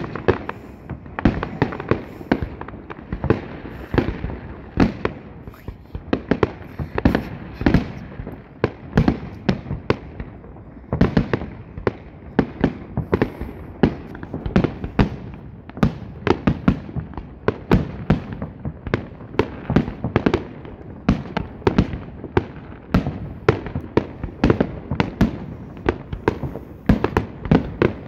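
Fireworks display: a continuous barrage of aerial shells launching and bursting overhead, several sharp bangs a second with no break.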